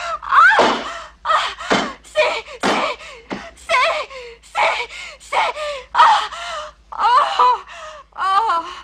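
A woman moaning and gasping in a string of short erotic cries, about two a second, each bending up and down in pitch.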